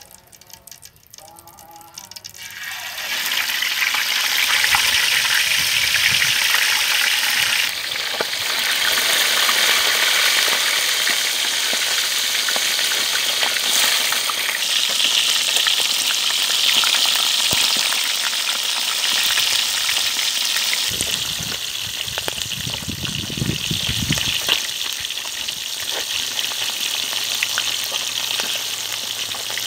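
Whole fish frying in hot oil in a steel wok: a loud, steady sizzle that starts about three seconds in and carries on throughout.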